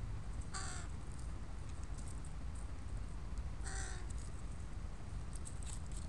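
A young crow giving two short caws about three seconds apart.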